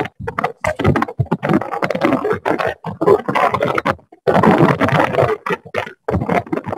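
Harsh, rumbling crackle of noise from a participant's open microphone on a video call, coming in irregular bursts with brief drop-outs. It is interference on the line rather than clear speech.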